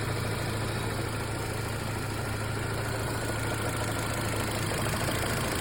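2005 Mini's 1.6-litre four-cylinder petrol engine idling steadily with an even, low hum.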